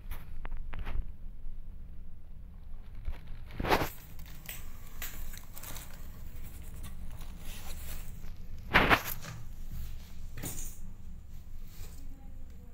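Short scratchy rustles over a low steady rumble, the two loudest about four and nine seconds in.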